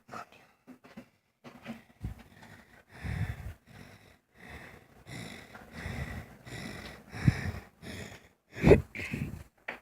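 A person breathing hard close to the microphone, in irregular puffs and sniffs.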